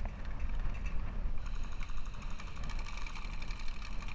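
Wind buffeting the microphone, with a rapid mechanical buzz and steady whine starting about a second and a half in and running for about three seconds.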